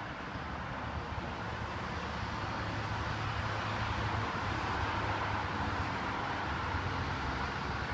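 Steady rushing outdoor background noise, swelling a little in the middle and easing off near the end.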